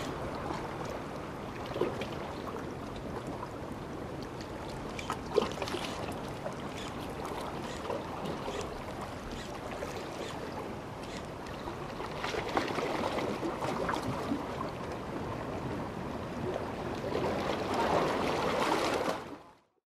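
Steady water noise of the sea at a harbour shore, with a few small clicks here and there; the sound cuts out abruptly near the end.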